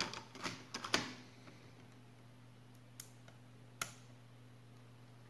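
Light plastic clicks and taps from handling a laptop's case parts: a quick cluster in the first second, then two single clicks, over a low steady hum.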